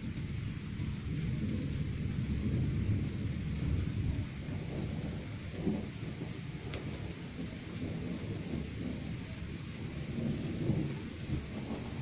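Thunder from a thunderstorm a few kilometres off, rumbling continuously and swelling about two to four seconds in and again near the end, over a steady hiss.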